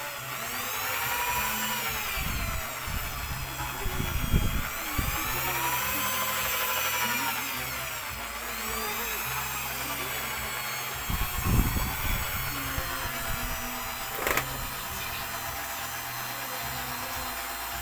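Electric drill with a mixing rod stirring thick liquid soap in a plastic bucket. The motor's whine rises and falls in pitch as the speed changes in the first half, then runs steadier. A few low thuds come about 2–5 seconds and 11–12 seconds in, and a sharp click comes near the end.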